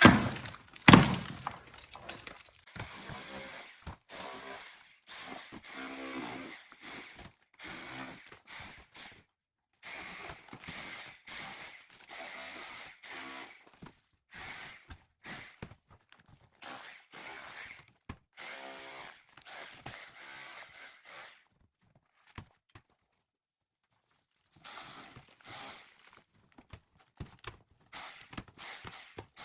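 Old plaster being scraped and chipped off a stone wall with a metal tool: many short scraping strokes with brief gaps, after two loud knocks at the start, and a pause of a few seconds about two-thirds of the way through.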